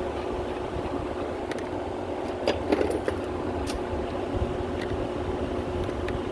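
A few light metal clicks and clinks, the loudest about two and a half seconds in, as a new castle nut is handled and threaded onto the wheel spindle, over a steady background hum.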